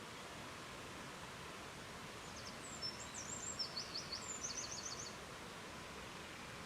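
Steady rushing of river water, with a small bird singing a quick high-pitched run of chirps and trills for about three seconds in the middle.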